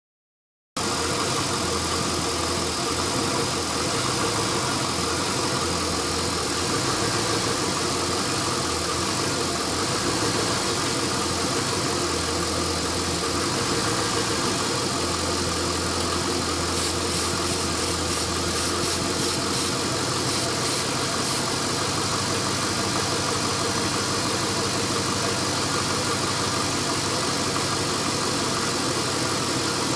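LS1 V8 with aftermarket headers idling roughly and steadily. The rough idle comes from a vacuum leak at an open fitting left after the AIR/EGR delete.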